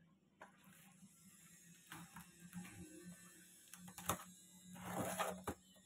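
Cardboard box being handled: a few light knocks, then a louder brief scrape and rustle of the cardboard flaps near the end, over a faint steady hum.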